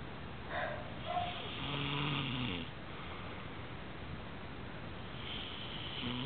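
A sleeping woman snoring. A drawn-out, pitched snore about two seconds in falls away at its end; shorter snorting sounds come before it, and another snore begins near the end.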